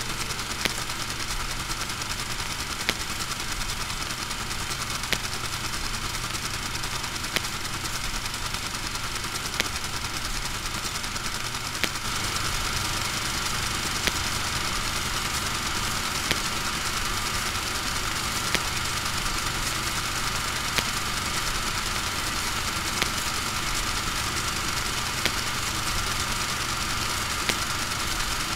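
A steady machine-like drone with a low hum, punctuated by a sharp click about every two seconds; it gets slightly louder about twelve seconds in.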